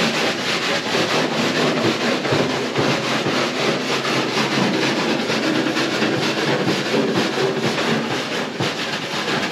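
Wooden-handled wire brush scrubbed rapidly back and forth over a bare metal car body panel, a continuous rasping scrape of many quick strokes.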